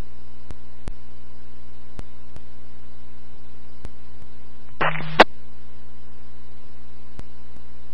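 Police radio scanner channel between transmissions: a steady hum with faint hiss and scattered faint clicks. About five seconds in, a brief radio key-up with no voice gives a short burst of static ending in a sharp squelch click.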